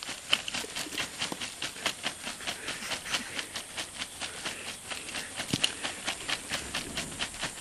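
Dry leaf litter and twigs rustling and rattling in a quarter-inch hardware-cloth sifter, shaken over a cloth bag with a quick, even rhythm of about four shakes a second as the fine material falls through.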